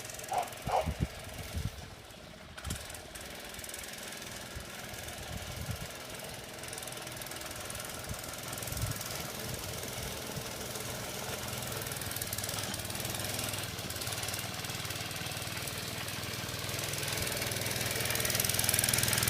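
Mini bike's small engine running steadily, growing louder near the end, with a few sharp clicks in the first couple of seconds.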